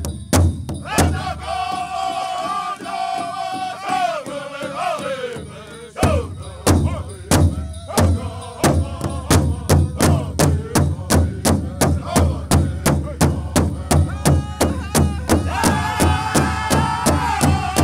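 Powwow drum group: a high solo voice sings a lead line unaccompanied for about five seconds. Then the big drum comes in with a strong hit and keeps a steady heavy beat of about two and a half strokes a second. The group of singers joins in high-pitched unison over the drum near the end.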